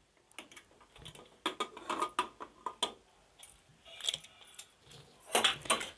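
Aluminium pressure cooker lid being unlocked and lifted off: a run of light metal clicks and scrapes, with a louder clatter near the end.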